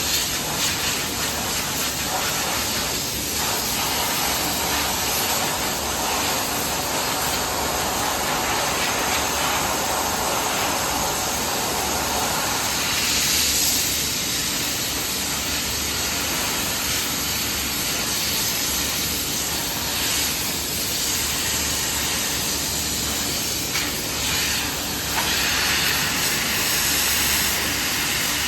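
Steady hissing rush of air from industrial machinery, with a faint low hum underneath.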